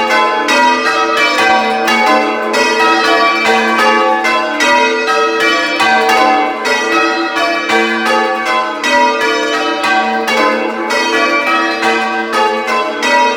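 A ring of six church bells, tenor in G, rung full-circle in call-changes and heard from inside the belfry: a steady, even stream of loud strikes, each bell's ring overlapping the next.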